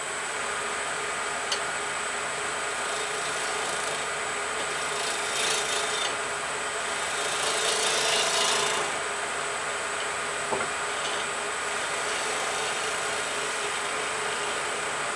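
Wood lathe running with a steady hum while a bowl gouge cuts the skin off a spinning kohlrabi, with louder scraping stretches about five and eight seconds in and two sharp ticks.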